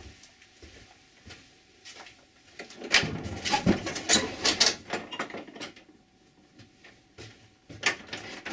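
Wooden shed door being unlatched and pulled open: a couple of seconds of clattering clicks and rattling boards, then a single knock near the end.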